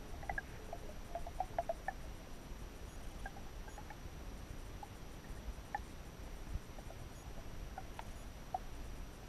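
Muffled underwater ambience in a pond: a steady low rumble of water and camera handling with scattered small clicks and ticks, most frequent in the first couple of seconds, over a faint steady high tone.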